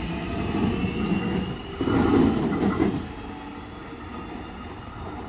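Alstom X'Trapolis electric suburban train departing, its rumble loudest about two seconds in and then fading as it draws away.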